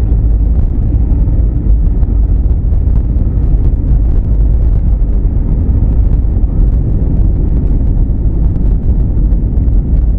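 Airbus A320neo on its takeoff roll, heard inside the cabin: a loud, steady, low rumble of the engines at takeoff thrust and the wheels running on the runway.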